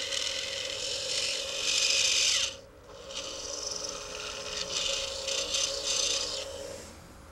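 Small high-speed rotary drill cutting into acrylic: a steady motor whine under a gritty grinding hiss. The hiss drops out briefly about two and a half seconds in, then resumes, and the drill stops near the end.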